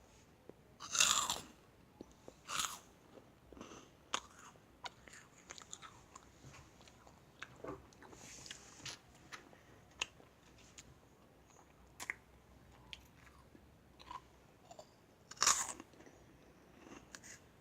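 Biting into crisp meringue cookies: loud crunches about a second in, again shortly after, and once more near the end, with small crackles and chewing in between.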